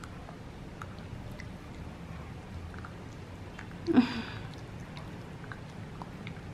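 A Shih Tzu licking and gnawing an ice cube held in a hand: faint wet licks and small crunching clicks, with one louder short sound about four seconds in.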